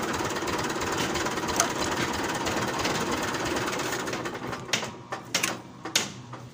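Tractor engine idling with a fast, even clatter, fading out about four seconds in; a few separate clicks and knocks follow.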